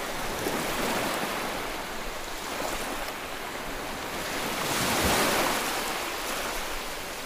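Water rushing and splashing past a moving boat's hull and wake, with wind buffeting the microphone; the rush swells briefly about five seconds in.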